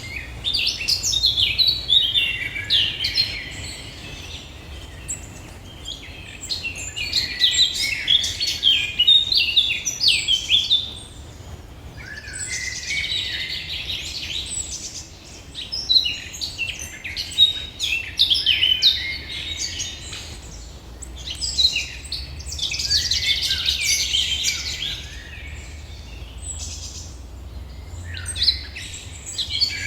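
Songbirds singing: bouts of fast, high twittering phrases a few seconds long, with short pauses between, over a faint low steady rumble.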